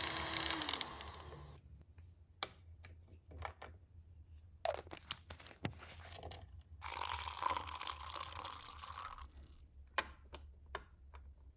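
A steady whirring noise stops about a second and a half in. After it come scattered light clicks and taps of small plastic miniature pieces being handled, with about two seconds of crinkly rustling, like plastic packaging, in the middle.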